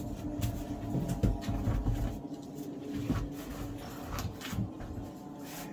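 Irregular scraping, knocking and rustling close to the microphone as a caver crawls over rock through a tight passage.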